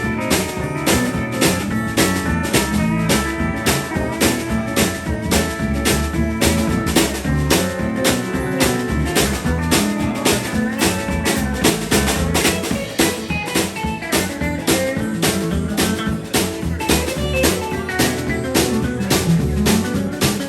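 Live blues-country band playing an instrumental break with no vocals: a steady drum backbeat under guitar and pedal steel, the pedal steel's held notes sliding in pitch.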